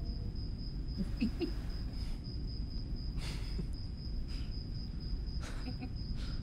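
A cricket trilling steadily at a single high pitch over a low background rumble, with a few short breathy sounds in the second half.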